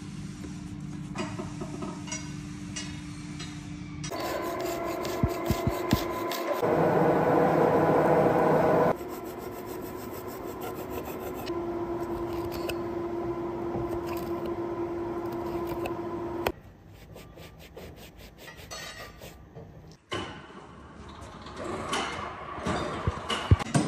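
Scraping and rubbing of metal on the steel parts of an excavator swing bearing, in several short cuts: mud-caked grease scraped from the ring gear teeth, and the bearing's steel balls handled. A steady machine hum runs under some of the cuts.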